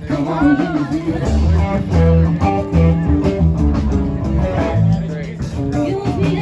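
Guitar-led band music, blues-rock in style, with a steady bass line under it, playing loudly and without a break.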